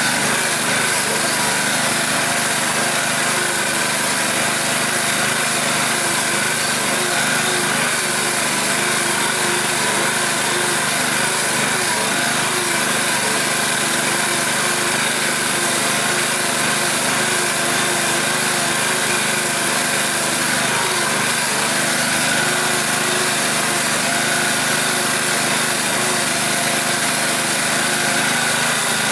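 Small engine of a tracked all-terrain vehicle running steadily while it drives through snow, heard from inside the cab.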